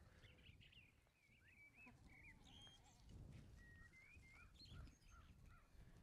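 Near silence, with faint small birds chirping and twittering in short, quick notes.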